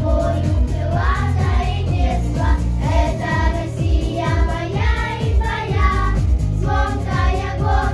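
A children's vocal ensemble singing a song in unison over instrumental accompaniment with a steady beat.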